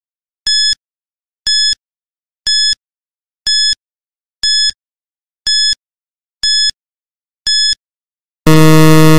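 Quiz countdown timer sound effect: a short, high electronic beep once a second, eight times, then a louder, lower buzzer for under a second near the end as the countdown runs out.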